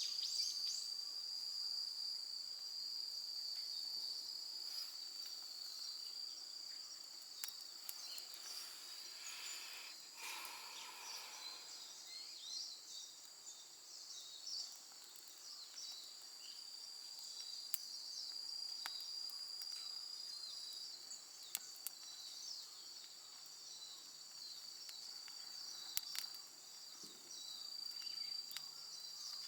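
Crickets and other insects trilling steadily in a high, continuous chorus, with scattered sharp clicks through it.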